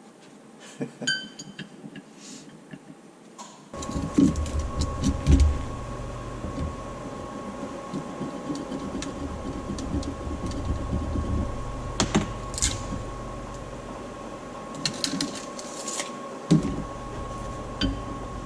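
A few light clicks, then a shop power tool is switched on about four seconds in and runs steadily, with a constant whine and a low hum, and scattered knocks and clatter as the work goes on.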